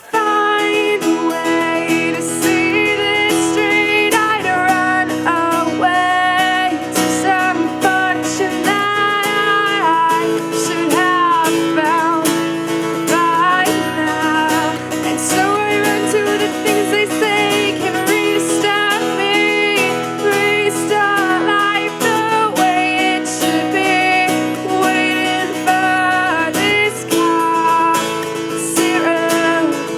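Acoustic guitar strummed in steady chords, with a woman singing long held, wordless melodic lines over it.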